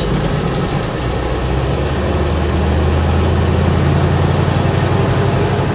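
MAN KAT1 truck's air-cooled Deutz diesel engine running as the truck drives, heard from inside the cab with road noise. It is a low steady drone that strengthens about a second in and holds.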